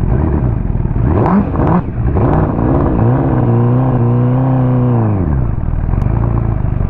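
Ducati motorcycle's twin-cylinder engine accelerating under way: its pitch climbs, holds steady for a couple of seconds, then falls away about five seconds in as the throttle closes, with wind and road noise throughout. The bike has a persistent misfire.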